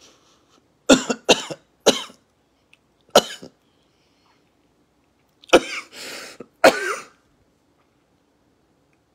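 A man coughing hard in a fit: three quick coughs, one more a second later, then after a pause two more with a noisy breath drawn between them.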